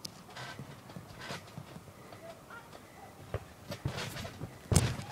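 Scattered soft knocks and rustles of a child moving on a trampoline, with one louder thump near the end as she lands on the mat.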